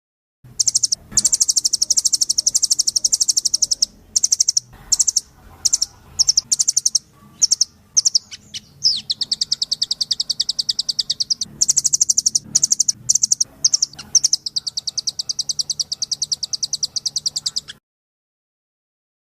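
High-pitched songbird trills from a compiled master-song recording: very fast chattering phrases broken by short pauses. The sound starts about half a second in and cuts off suddenly near the end.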